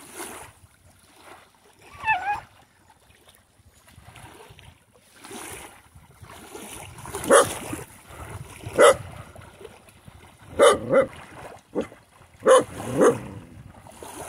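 A dog barking off and on: a short high yelp about two seconds in, then a string of short barks in the second half, some coming in quick pairs.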